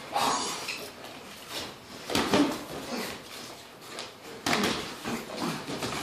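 Boxing sparring: a handful of irregular thuds and scuffs from gloved punches and footwork on the ring canvas, the strongest about two seconds in and again past four seconds.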